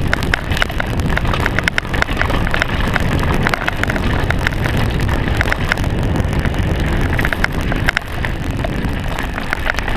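Mountain bike riding fast down a rough, rocky trail: wind rumbling on the GoPro microphone, with rapid, irregular rattles and knocks from the bike over rocks and roots.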